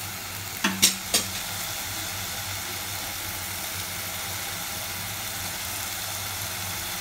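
Onions, green chillies, curry leaves and ginger-garlic paste sautéing in oil in a metal pressure cooker pan, a steady sizzle, with three quick metallic knocks about a second in from the perforated steel ladle striking the pot.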